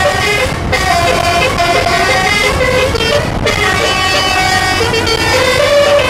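Bus telolet horn (a basuri multi-tone air horn) playing a melody of quickly changing notes, with short breaks about a second in and about three seconds in, over a constant low rumble.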